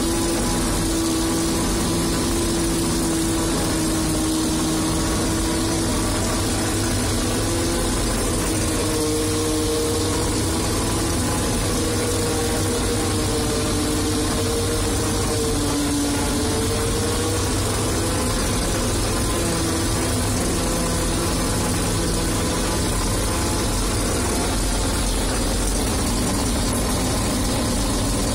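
Fortschritt E-281 self-propelled forage harvester running steadily while harvesting maize, heard from inside its cab: a constant diesel drone with a hum that wavers slightly in pitch.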